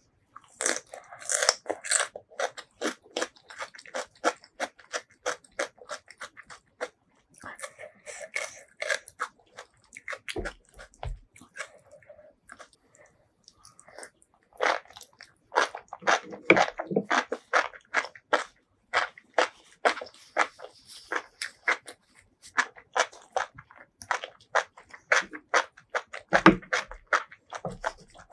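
Close-miked eating sounds: rapid, wet chewing and crunching at about three or four chews a second, with a pause of a few seconds about a third of the way in.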